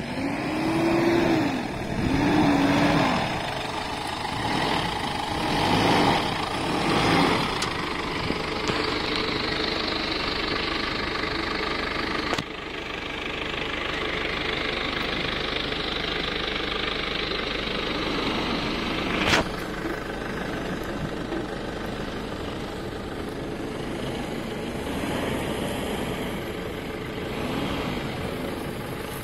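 Ford Endeavour's engine revving up and down several times in the first few seconds as it works through soft sand, then running on more steadily. A single sharp click comes about two-thirds of the way through.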